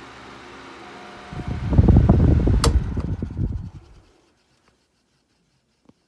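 Beyond Breeze 12-inch oscillating table fan running with a steady whooshing noise. About a second in, a loud low rumble with a sharp click takes over, and the sound cuts off to silence at about four seconds.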